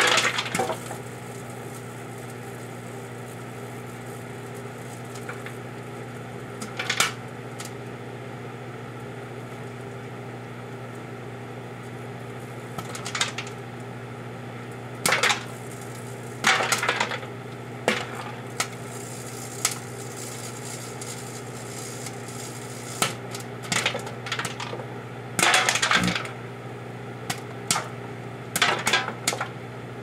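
Microwave oven running with a steady hum, while the Jiffy Pop pan inside gives off scattered sharp pops and crackles, a dozen or so, some in quick clusters.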